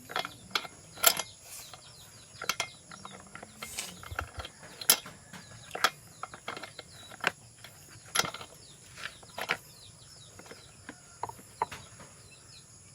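Irregular sharp clicks and light knocks, one every half second to a second or so, from parts and tools being handled by hand.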